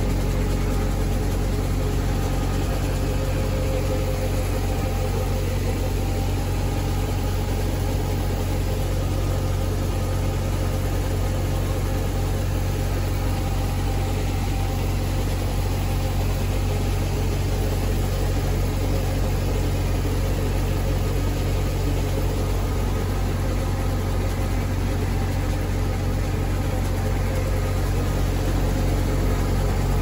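A motor running steadily at an even speed, a constant low drone with no change in pitch.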